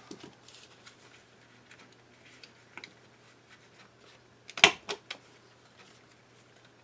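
Handheld corner rounder punch pressed on cardstock: one sharp clack about two-thirds of the way in, followed quickly by two lighter clicks, with quiet paper handling before it.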